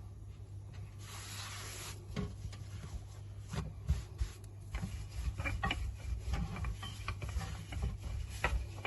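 Rolling pin rolling out a saag-stuffed paratha on a board: a soft rubbing, then many light irregular knocks and taps as it goes back and forth.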